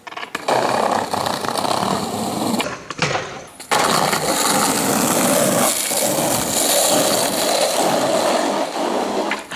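Skateboard wheels rolling over rough pavement. The rolling noise drops away briefly and comes back sharply just under four seconds in.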